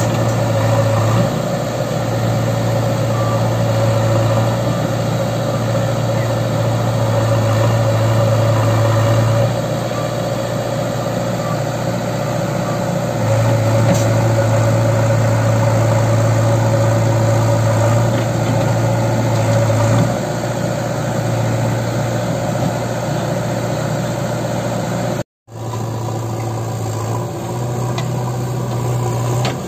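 Diesel engines of a JCB 3DX backhoe loader and a Swaraj 744 FE tractor running together, a steady low hum that grows louder and eases off every few seconds as the machines work. There is a momentary cut to silence a little before the end.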